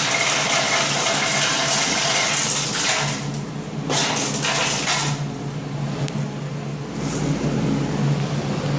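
Hotel push-button ice dispenser delivering ice: a rushing pour of ice for the first few seconds, then a couple of shorter spurts, over the machine's steady low hum.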